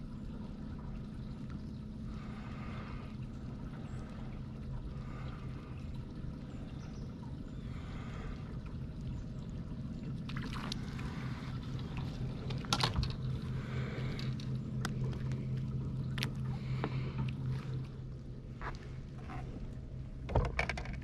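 A boat's electric trolling motor humming steadily, fading out near the end, with a few sharp knocks in between.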